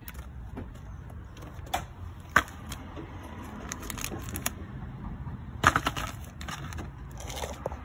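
Handling of auto parts: a new tie rod end rustling in its plastic bag and metal parts clinking on concrete. A sharp click comes about two and a half seconds in and a quick run of clinks near six seconds, over steady low background noise.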